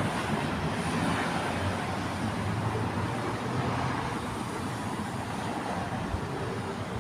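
Steady outdoor traffic rumble: low road noise with a faint hiss, easing off slightly, and a short low thump about six seconds in.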